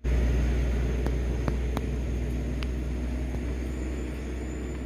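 Vehicle engine idling: a steady low rumble, with a few faint clicks in the first few seconds.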